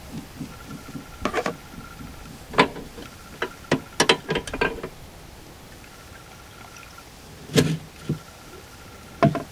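Scattered metal clicks and clinks as a cotter pin is pulled and the lifting arm is worked loose inside a distribution transformer's tank, with two sharper knocks near the end.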